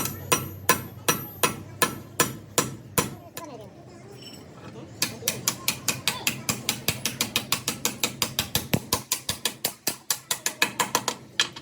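Hammer striking metal in a steady run of blows, about three a second. After a pause of about two seconds it goes on with faster blows, about four or five a second.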